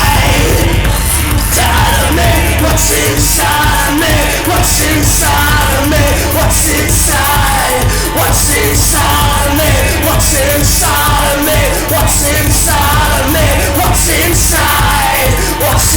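Loud rock music with shouted vocals over a steady, driving drum beat.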